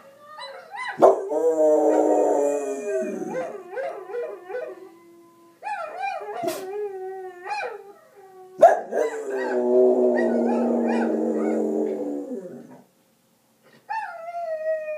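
A soft coated wheaten terrier howling along with a recording of a wolf pack, long wavering howls that rise and fall in pitch. Thick stretches of chorus come about a second in and again about nine seconds in, and after a short break the howls start again near the end.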